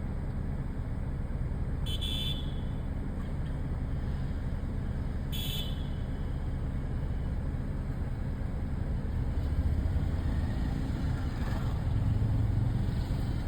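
Steady low road and engine rumble from a moving vehicle, with two short horn toots about two and five seconds in.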